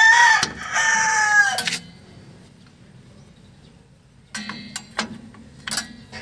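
A rooster crowing once, its long last note falling in pitch. A few seconds later come light metallic clicks and clinks of brake-shoe parts being handled as the shoe is fitted to the drum-brake backing plate.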